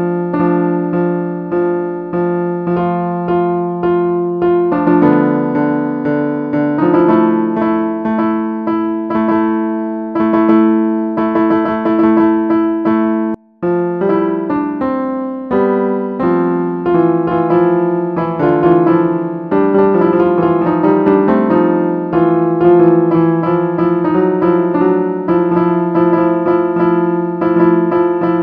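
Piano notes from a smartphone piano app, a tune played over steady repeated notes. The sound cuts out for a split second about halfway through.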